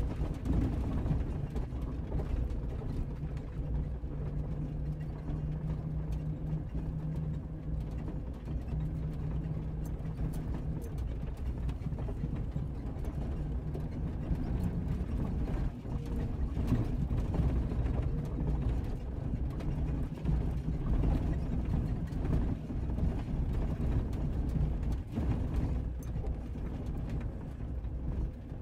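Jeep Cherokee XJ engine running at low, steady revs as the Jeep crawls over a rough dirt trail, with scattered knocks and rattles from the vehicle over bumps.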